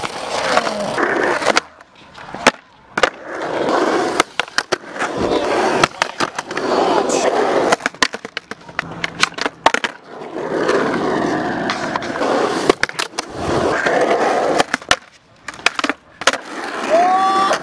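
Skateboard wheels rolling over a concrete skatepark in several runs, broken by sharp clacks of the board popping, hitting a metal rail and landing.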